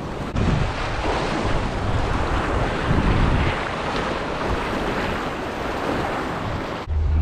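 Ocean surf washing against a rocky jetty, with wind rumbling on the microphone. Near the end it cuts suddenly to a steady low hum.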